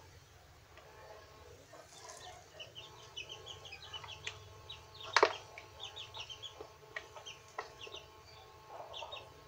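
Birds calling in clusters of short repeated chirps, with one sharp click or knock about five seconds in.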